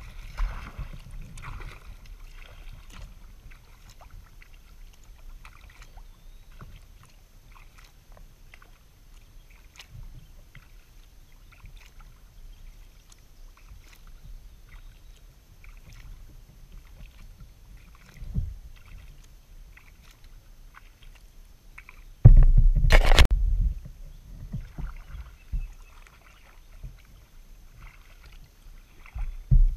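Kayak paddling on calm water: small drips and splashes from the paddle and water lapping at the hull over a low rumble, with a much louder rumbling knock lasting about two seconds past two-thirds of the way through.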